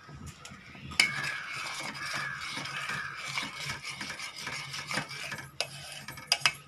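A spoon stirring hot milk that is splitting with added vinegar in a metal pot, scraping and clinking against the pot. A steady hiss starts about a second in, and sharp clinks come more often near the end.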